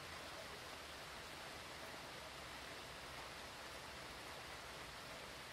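Steady hurricane rain: an even hiss with a low rumble beneath it.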